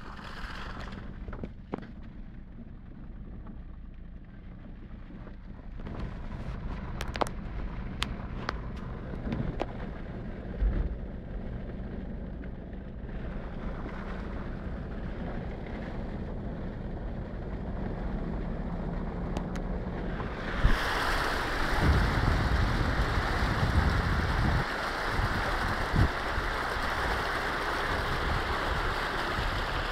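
Car engine running at low speed while the car drives slowly through floodwater covering a road. After about twenty seconds a loud, steady rush of water joins it as the car pushes through deeper water and the wheels throw up spray.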